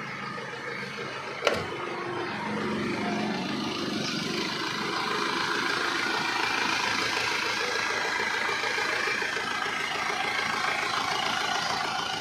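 Isuzu Panther diesel engine running steadily at idle, with one sharp click about a second and a half in.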